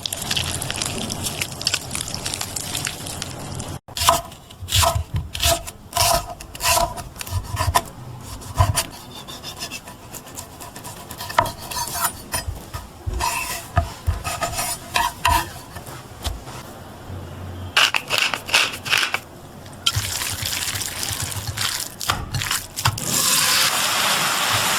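Kitchen cooking sounds: many short knocks, clicks and scrapes of utensils on cookware, some with a brief metallic ring, followed by a steady hiss in the last few seconds.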